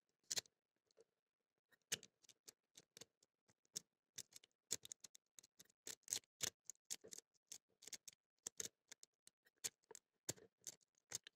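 Faint, irregular clicks and ticks of a homemade tickler-style pick and a thin tension wrench working the pins inside a small brass ERREBI Easy pin-tumbler padlock.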